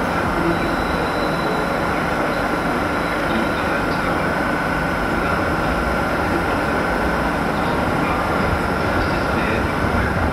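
English Electric Class 37 diesel locomotive running steadily as it draws its coaches slowly along, with a steady high whine held over the engine's rumble.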